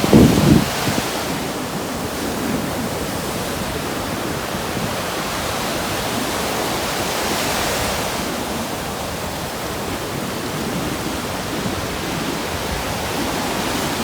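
Ocean surf and strong wind: a steady rushing wash of waves, with a low gust buffeting the microphone at the start and a wave's hiss swelling up and fading about halfway through.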